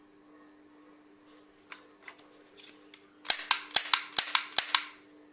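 Toy cap gun fired in quick succession. A few faint clicks come first, then about two thirds of the way in a rapid string of about eight sharp cracks, roughly five a second. A steady low hum runs underneath.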